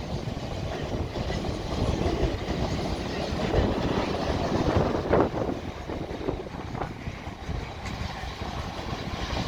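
A double set of Class 444 Desiro electric multiple units passing through the station without stopping: continuous running noise of the wheels on the rails.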